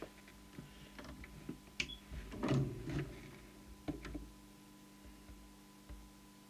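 Light clicks and knocks of a test probe and its lead being handled against a CB radio's metal chassis and circuit board, bunched in the first four seconds with a busier patch near the middle, over a faint steady electrical hum.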